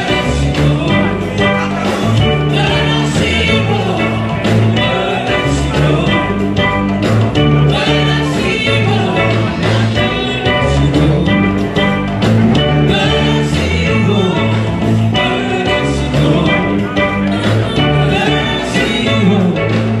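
Upbeat dance music with a steady bass line and vocals sung into microphones, played through a stage PA.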